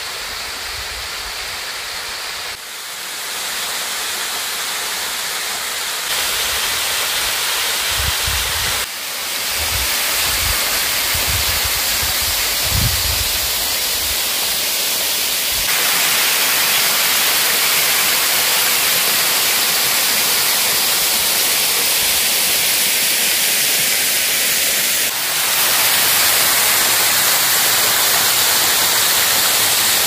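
Waterfall spilling down a rock face into a plunge pool: a steady rushing hiss of falling water that gets louder in steps, closest and loudest near the end. A few low rumbles come between about 8 and 13 seconds in.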